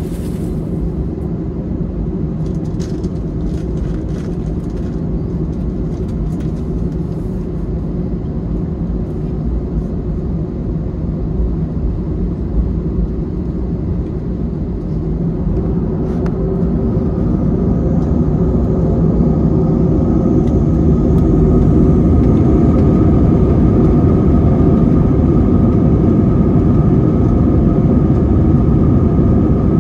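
Cabin sound of an Airbus A321-200's CFM56 turbofan engines: a steady low rumble that grows louder from about halfway through, with a new whine appearing and rising in pitch before it holds, as the engines spool up toward takeoff thrust.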